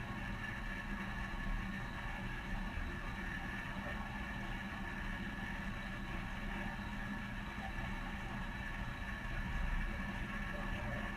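Dishwasher running: a steady mechanical hum that holds level throughout.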